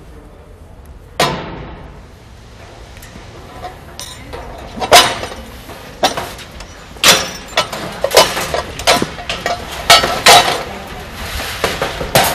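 Galvanised steel sheep turning crate clanking as it is locked and tilted: one sharp ringing clank about a second in, then a run of metal knocks and clinks from about five seconds on.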